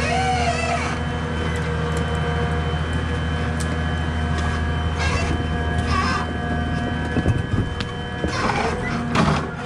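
Komatsu 931 XC harvester's diesel engine running steadily with a steady hydraulic whine over it. Near the end come a few knocks and creaks.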